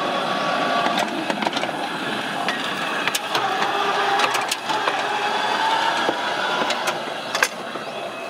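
Small battery-electric mine locomotive running along narrow-gauge track: a steady electric motor and gear whine that rises slightly in pitch around the middle, with irregular sharp clicks and knocks from the wheels on the rails.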